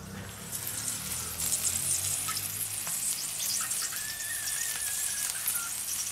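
Duck fat sizzling and crackling over hot charcoal in an open kettle grill, a steady hiss full of small pops, with a faint wavering whistle starting about four seconds in.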